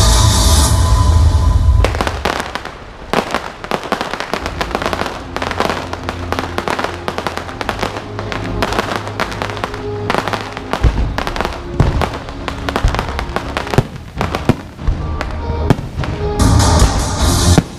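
Fireworks crackling and popping in dense rapid strings of sharp cracks over background music. The music is loudest in the first couple of seconds and again near the end.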